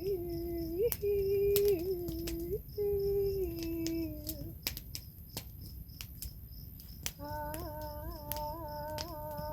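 A woman's wordless humming and singing: long held notes with small slides, a pause partway through, then a lower, fuller held note. Crickets chirp steadily behind.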